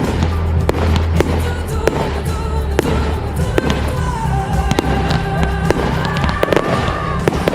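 Fireworks going off in a quick scatter of bangs and crackles, over music with a steady bass and a held melody.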